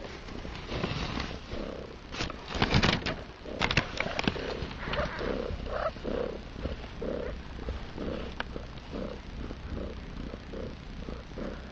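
Domestic cat purring in a steady rhythm, with a loud burst of rustling and crackling clicks a couple of seconds in.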